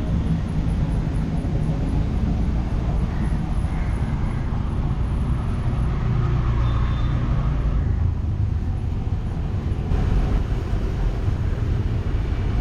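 Steady low rumbling noise with a few faint distant sounds above it.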